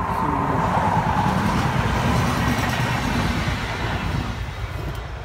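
A motor vehicle passing by, its noise swelling over the first second and fading away about four seconds in.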